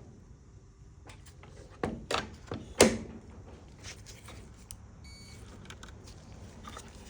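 Hands working on an opened microwave while testing its door interlock switches with a multimeter: a few sharp clicks and knocks about two to three seconds in, the last the loudest, with a brief faint beep about five seconds in.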